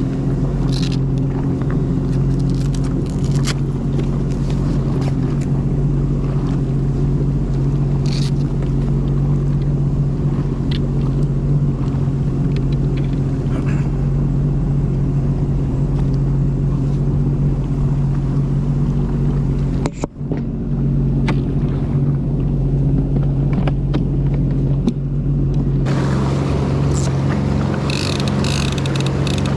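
Sea-Doo Fish Pro personal watercraft engine running steadily at low trolling speed, a constant low hum. Near the end, water rushing from the wake joins in.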